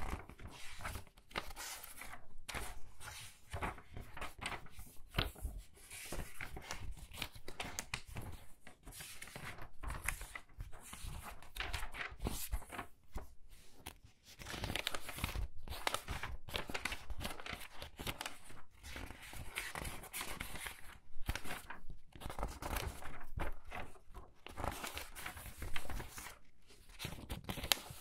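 Paper pages of a book being turned quickly one after another: a rapid, continuous run of swishing, crinkling page strokes with only brief gaps.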